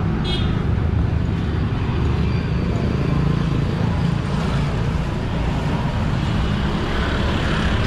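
Steady street traffic noise, a continuous low rumble of passing vehicles.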